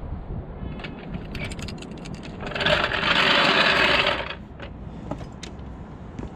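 Steel trolley jack being rolled out from under the car across tarmac: a loud rattling rumble of nearly two seconds in the middle, with scattered metal clicks and knocks before and after.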